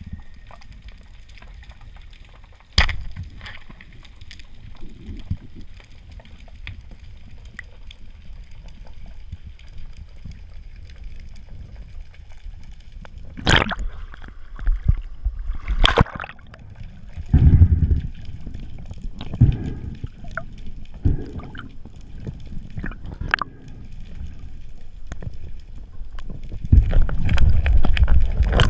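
Water sloshing and gurgling around an underwater camera, with a few sharp clicks and several louder low rumbling surges in the second half, the longest near the end.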